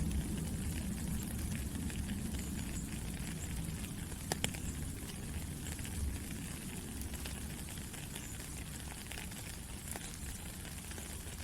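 Steady rain falling, a dense even pattering with a low rumble underneath, and a couple of sharper taps about four seconds in.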